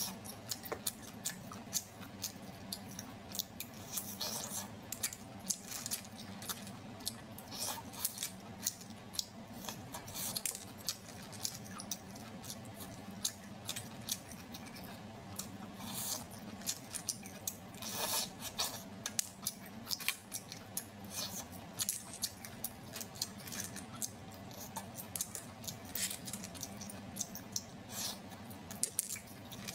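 Clam shells clicking and clinking against one another and the metal bowl as steamed clams are picked up and eaten, with wet mouth sounds of sucking and chewing the clam meat. Many short sharp clicks come irregularly throughout.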